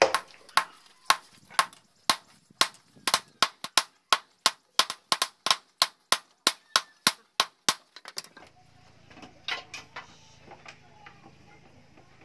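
Hand hammer striking a red-hot steel knife blade on a small steel post anvil: about 25 sharp, ringing blows at two to three a second, drawing out the hot blade. The hammering stops about eight seconds in, leaving a faint low hum and a few light knocks.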